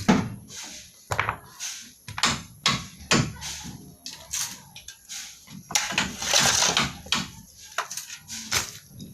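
Irregular knocks and clatters, several a second, with a longer scraping or rasping sound a little past the middle.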